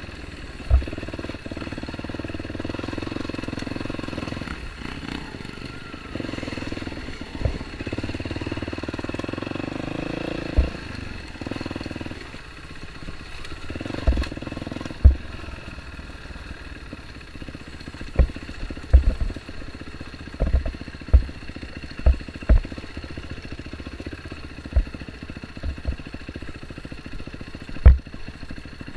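Dirt bike engine running at low revs, its note shifting a little and dropping back after about twelve seconds, with a series of sharp knocks through the second half.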